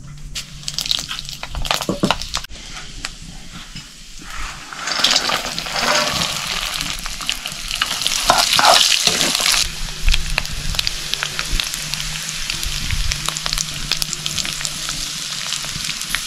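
Food frying and sizzling in a hot pan, stirred and scraped with a spoon. The sizzle swells about five seconds in, then settles to a steady frying hiss.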